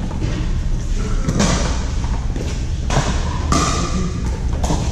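Pickleball paddles hitting plastic balls: several sharp pops a second or so apart, each with a short echo, over a steady low rumble.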